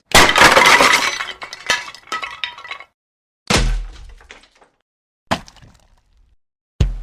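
Objects dropped onto a hard floor one after another. A long crash just after the start, with many pieces clattering and settling for nearly three seconds, is followed by three separate single drops, the first with a dull low thud.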